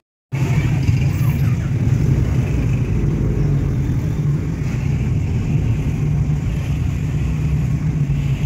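Car engine and road noise heard from inside the cabin while driving slowly: a steady low drone. It comes in after a brief silent gap at the very start.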